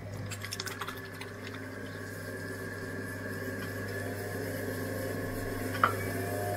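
Electric potter's wheel spinning fast, its motor giving a steady hum while wet clay is centred on the wheel head by hand; a brief squeak near the end.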